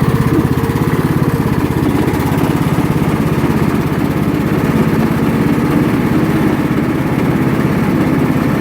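Toro LX420 lawn tractor engine running steadily with the mower blades engaged, its tone shifting slightly about half a second in.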